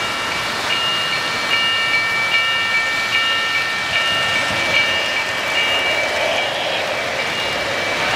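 Electronic bell of a model railroad grade-crossing signal beeping a little faster than once a second, over the steady running noise of an O-scale three-rail train passing on the track.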